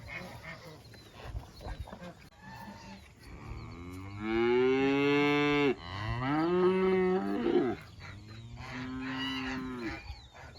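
Beef cattle mooing: three long moos, the first two loud and the third softer, each rising and then falling in pitch.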